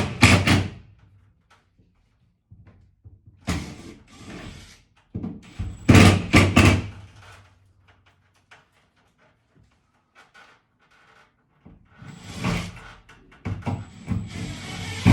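Cordless drill driving screws up into ceiling drywall in short runs, with quiet pauses between them.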